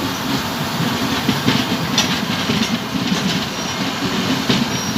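Vintage railway passenger coaches rolling slowly into the station, with a steady rumble and their wheels clicking over rail joints.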